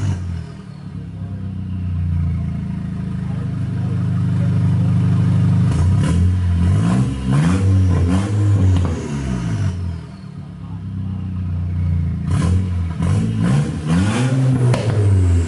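Turbocharged Volkswagen engine with a newly fitted K04 turbo being revved: held at steady revs for a few seconds, then blipped repeatedly, the revs rising and falling. Sharp clattering clicks come between the blips, and a faint falling whistle sounds as the revs drop.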